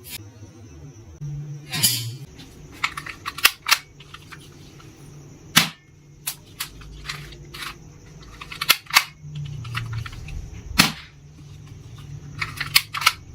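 Toy guns firing: a string of sharp cracks at uneven intervals, some singly and some in quick clusters of two to four.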